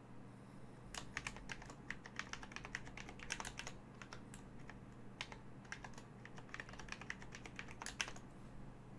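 Typing on a computer keyboard: irregular runs of key clicks with a brief lull near the middle, over a faint steady low hum.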